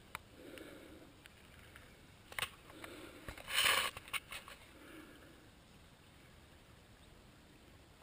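Mostly quiet, with a few sharp clicks and a brief rustle about three and a half seconds in: handling noise on the camera as it is held and moved.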